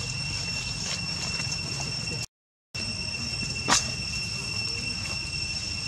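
Steady high-pitched insect drone held on two even tones over a low outdoor rumble. The sound cuts out completely for about half a second a little over two seconds in. A single sharp click comes about three and a half seconds in.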